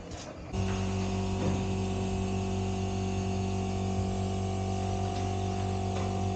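A steady mechanical hum made of several fixed tones, cutting in abruptly about half a second in.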